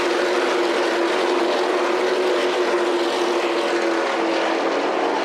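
NASCAR stock cars' V8 engines running at racing speed on the track, a steady drone whose pitch wavers slightly.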